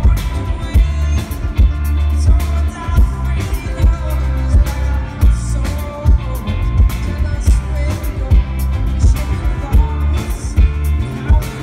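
Live rock band playing: electric guitar, electric bass and drum kit, with heavy bass and a steady drum beat.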